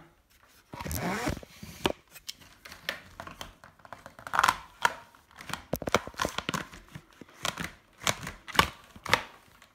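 Irregular clicks, knocks and rustles of hard plastic parts being handled, as a Dyson DC40 vacuum's wand is pushed into its hose.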